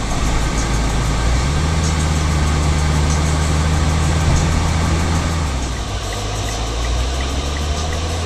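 Car interior noise from a Mitsubishi Lancer being driven: steady engine and road noise with a deep drone that swells about a second in and eases after about five seconds. A light, regular ticking comes in near the end.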